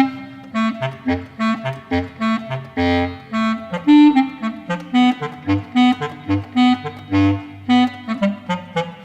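Instrumental background music: a lively run of short, detached notes over a bouncing bass line.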